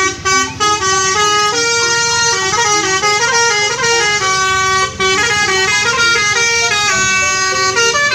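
Multi-tone 'telolet' bus horn playing a tune: several horn notes sounding together and stepping from pitch to pitch without a break.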